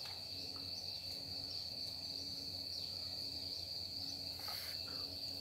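Crickets trilling steadily in the background, one unbroken high-pitched tone.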